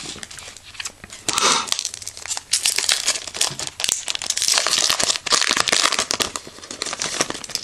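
Foil wrapper of a Topps 2011 Opening Day baseball card pack being torn open and crinkled as the cards are pulled out, an irregular crackling that starts about a second in.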